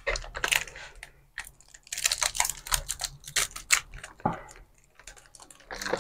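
Plastic wrappers of small chocolate bars crinkling as they are handled: a run of quick crackling clicks, densest in the middle.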